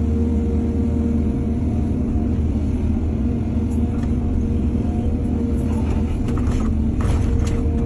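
Heavy diesel engine of earthmoving machinery running steadily, with a few short scraping and knocking sounds in the second half, loudest near the end.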